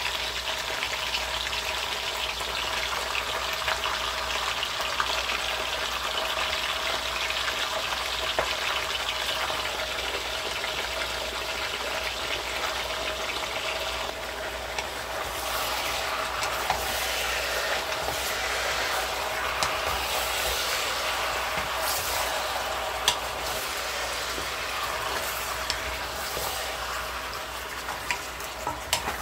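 Chicken pieces searing in hot avocado oil in a stainless steel pot: a steady sizzle. About halfway through, the sizzle drops a little and turns uneven, as the pieces are moved and stirred with a wooden spatula.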